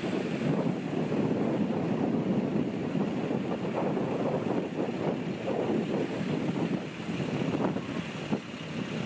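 Ocean waves lapping and splashing irregularly, with wind buffeting the microphone.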